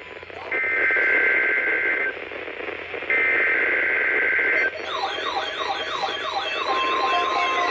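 NOAA Weather Radio alert broadcast received weakly through heavy static hiss: two long bursts of buzzy, screeching SAME header data tones, then from about two-thirds of the way in, overlapping wavering siren-like alert tones with a steady tone near the end.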